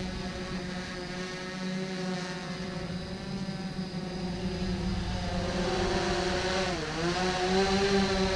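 Small consumer quadcopter drone's propellers whining steadily in a hover. Near the end the pitch dips sharply and climbs back as the motors change speed.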